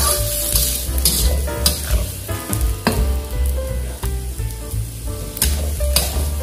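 Baby corn and green beans sizzling in hot oil in a metal wok, stirred with a slotted metal spatula that scrapes and clinks against the pan a few times.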